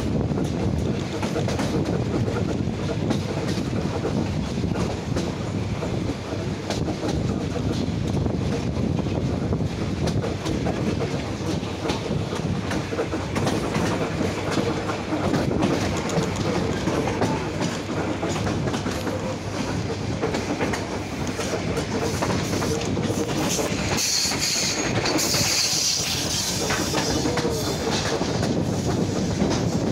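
A suburban train's wheels clatter over rail joints and switches as it crosses from the through line onto a side track, heard from a carriage window. A high wheel squeal rises about 24 seconds in and lasts a few seconds.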